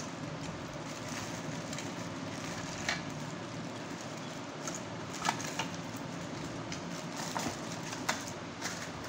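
Thin plastic bags crinkling and hard plastic trimmer guard combs clicking against each other as they are handled, a few sharp clicks over a steady hiss.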